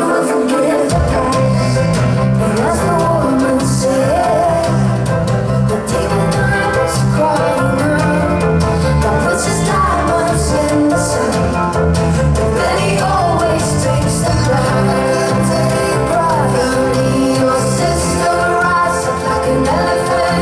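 Live rock band music with a woman singing lead over a Fender electric guitar; the bass and drums come in about a second in and keep a steady beat.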